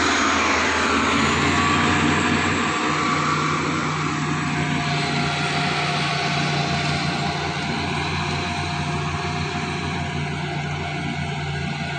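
A construction machine's engine running steadily, heard from its cab, with a steady low drone and a constant whine above it.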